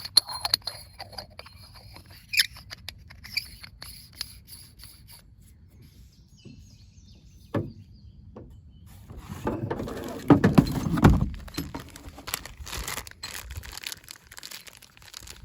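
Clicks, taps and handling noise of an oil catch can being put back together by hand, with a louder rustling and bumping stretch about ten seconds in.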